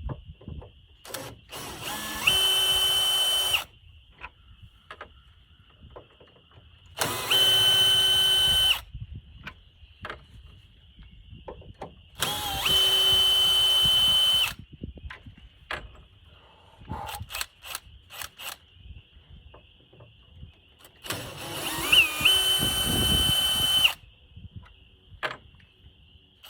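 Cordless drill-driver running in four short bursts of one to three seconds each, with a steady whine that comes up to speed at the start of each burst, driving out hinge screws. Small clicks and handling knocks come between the bursts.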